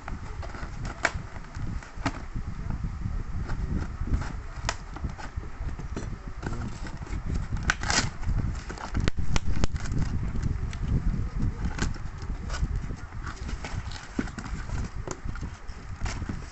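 A cardboard shipping box being cut open with scissors and pulled apart by hand: scattered clicks, snips and knocks with cardboard and plastic rustling over a steady low rumble, and a short, louder rasp about eight seconds in.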